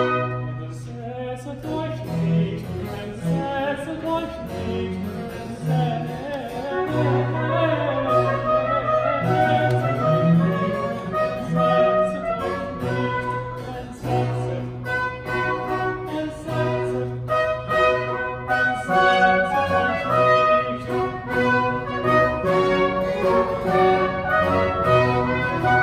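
Baroque chamber ensemble playing: bowed strings and continuo with baroque trombones, and a bass soloist singing over them.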